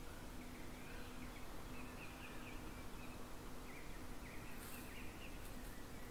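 A bird calling in runs of short, repeated high notes, which the uploader takes for a kestrel. A brief hiss breaks in about two-thirds of the way through.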